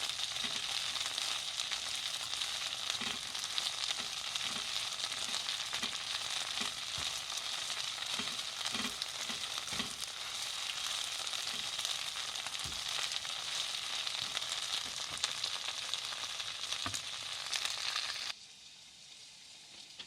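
Eggplant and ground meat stir-frying in a pan with seasoning sauce, a steady sizzle with scattered soft knocks of stirring. The sizzle cuts off suddenly near the end.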